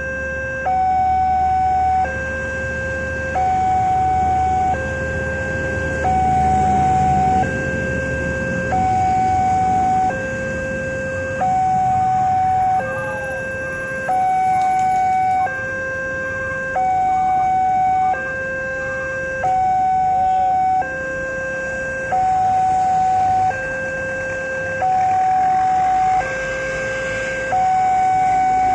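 Railroad level-crossing warning alarm sounding a steady alternating high-low two-tone, each note held a little under a second. A low rumble runs under it for the first several seconds, then fades.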